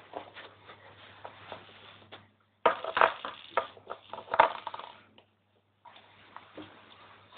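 Kittens scrambling on carpet and batting a toy ball about: scratchy rustling with quick clicks and knocks, loudest and busiest in the middle, stopping briefly near the end.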